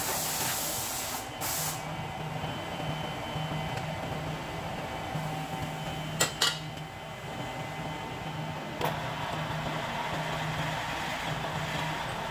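Steady machine hum with a low pulsing drone and hiss. It is broken by a quick pair of sharp knocks about six seconds in and another single knock near nine seconds.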